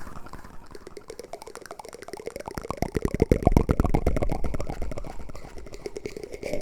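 Close-miked ASMR trigger sounds from a wooden spoon: a fast, dense run of small clicks and crackles, quieter at first, swelling from about three seconds in, then easing off.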